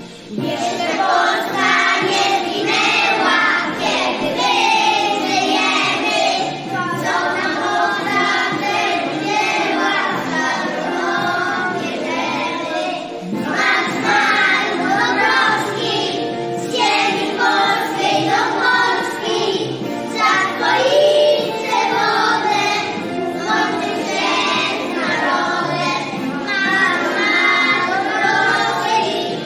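A choir of small preschool children singing a Polish patriotic song together.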